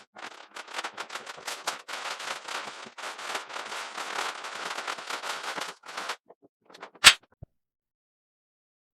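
Plastic wrapping on a newly delivered lathe crackling and crinkling as it is torn off, with a single sharp snap about seven seconds in; then the sound stops dead.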